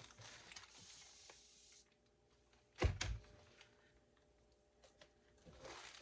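Rustling as household items are handled, then a single thud about three seconds in, as of something knocked or set down on a hard surface, and a little more rustling near the end.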